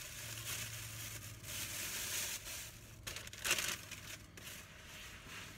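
Plastic packaging crinkling and rustling as it is handled, with a louder crinkle about three and a half seconds in.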